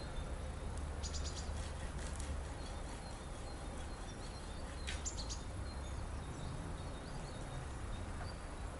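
Spring outdoor ambience of small birds chirping over a steady low rumble: a quick run of high chirps about a second in, another short call about five seconds in, and faint distant chirps between.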